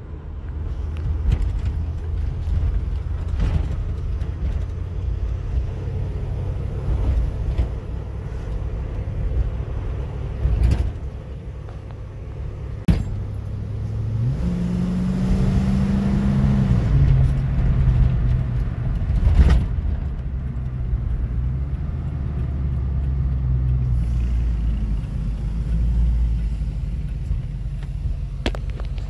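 1986 Mercury Capri's engine and road noise heard inside the cabin while driving: a low, steady rumble. About halfway through, the engine note rises as the car accelerates, then drops back. A few sharp knocks come now and then.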